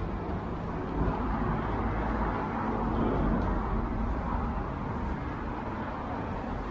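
Road traffic on a busy city street: a steady rumble of passing cars and vans with general street noise.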